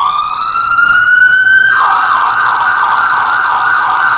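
Emergency-vehicle siren played as a sound effect in the dance's backing track. It gives a rising wail for about two seconds, then switches to a fast, steady warble.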